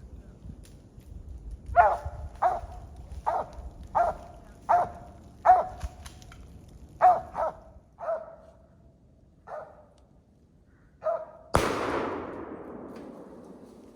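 Squirrel dog barking treed, a run of about a dozen short barks. A single gunshot near the end, the loudest sound, with a long fading echo, as the treed squirrel is shot out.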